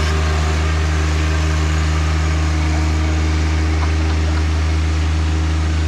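John Deere 1025R compact tractor's three-cylinder diesel engine running steadily at an even speed.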